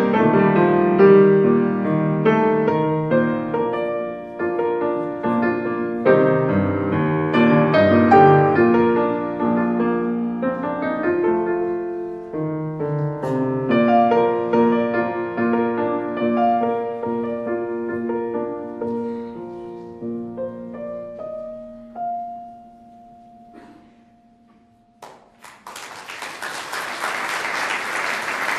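Piano playing a slow classical piece, thinning out to a last held note that dies away. After a short pause, audience applause breaks out near the end.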